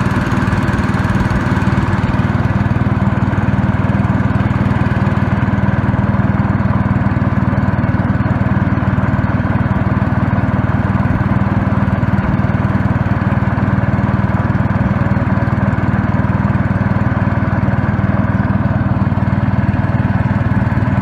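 Small engine of a wooden river boat running steadily at an even speed while the boat is under way.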